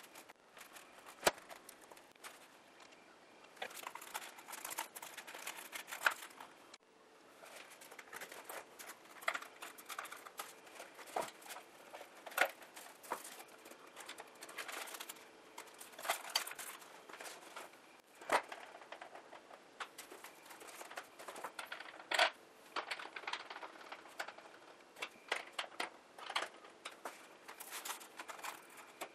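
Hands handling foam model-airplane parts, servo wiring and plastic parts bags on a table: irregular clicks, taps and rustling, with a few sharper knocks.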